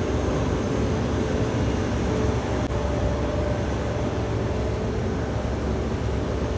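Steady low mechanical hum and rumble, with a faint steady tone joining about two and a half seconds in.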